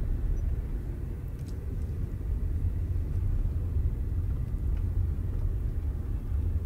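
Low, steady road rumble heard inside a car driving slowly over a dirt road, with a few faint clicks.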